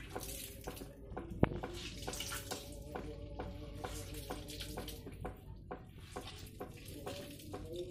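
Hands squeezing and tearing wet oyster mushrooms: a run of wet crackling and squelching, with one sharp click about one and a half seconds in.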